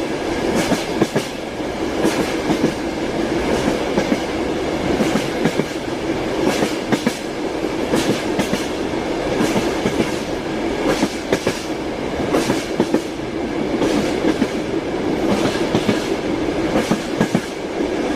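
Train wheels clattering over rail joints: a steady rumble and hum of the moving railway car, with groups of sharp knocks every second or two.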